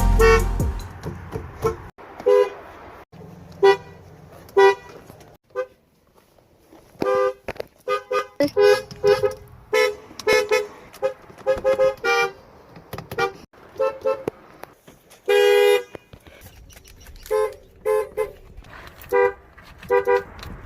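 Car horns sounding one after another: mostly short taps and double toots, each a clear steady pitched blare, with one longer blast about fifteen seconds in. The abrupt breaks between them suggest separate horns, one vehicle after another.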